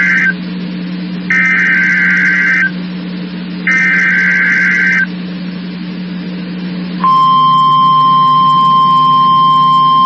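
NOAA Weather Radio SAME header data: the end of one screechy burst of rapidly alternating high tones, then two more bursts about a second apart. About seven seconds in, the steady 1050 Hz warning alarm tone starts and holds. This is the weekly required test of the SAME and tone alert systems.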